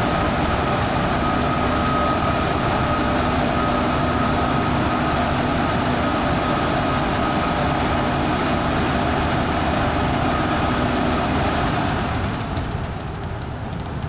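Steady road and engine noise heard from inside a double-decker bus driving through a road tunnel, with a steady whine over it; the noise drops about twelve seconds in as the bus leaves the tunnel for the open road.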